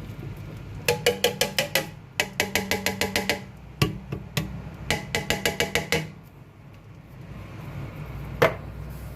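Rapid knocking on a tin of banga (palm-fruit concentrate) while it is emptied into the pot: three quick runs of about a second each, roughly eight ringing knocks a second, then a couple of single knocks.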